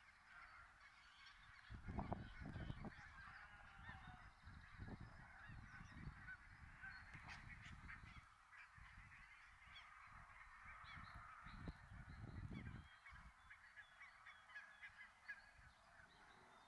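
Geese honking and calling faintly, many short overlapping calls throughout. Low rumbling bumps come about two seconds in and again around eleven to thirteen seconds.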